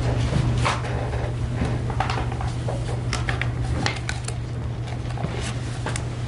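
Quiet courtroom room tone: a steady low hum with scattered small clicks and rustles.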